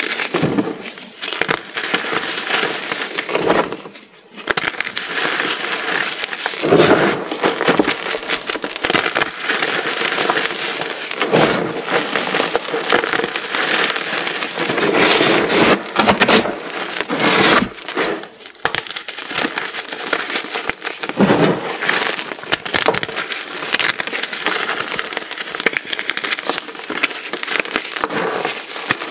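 Many small pyramids of dyed, reformed gym chalk being crushed together: a dense run of crunching and crackling, with brief lulls about four seconds in and past the middle.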